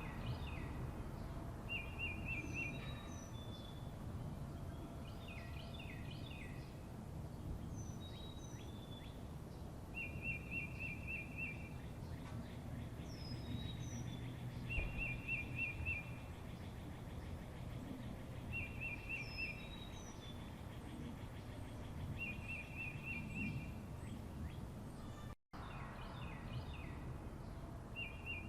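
Songbirds singing: a short, rapid trill repeated every few seconds, with scattered chirps and downward-sliding whistled notes, over a steady low background rumble. The sound cuts out for a moment near the end.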